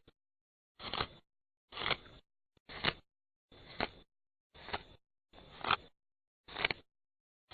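Scissors cutting through hair in a steady rhythm, about one stroke a second, each building to a sharp snip as the blades close.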